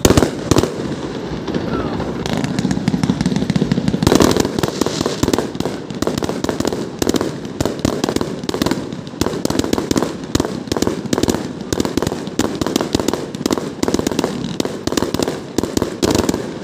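Fireworks display: shells bursting overhead, a loud bang right at the start, then a dense, rapid run of bangs and crackles from about four seconds in.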